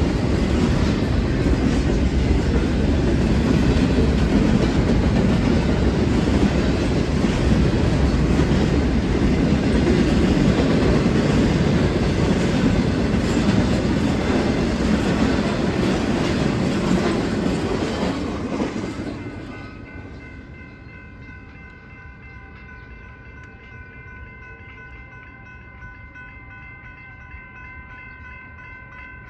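Union Pacific intermodal freight cars rolling past at a railroad crossing: a loud, steady rumble and clatter of steel wheels on rail. The noise drops away fairly quickly about two-thirds of the way through as the train moves off. After that, a steady crossing-signal bell tone is left ringing.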